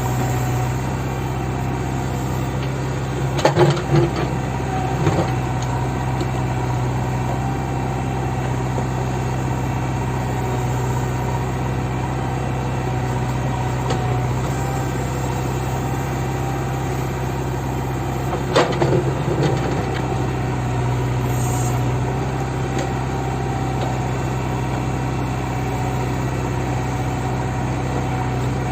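Backhoe loader's diesel engine running steadily. Short loud knocks and clatter come a few seconds in and again about two-thirds of the way through.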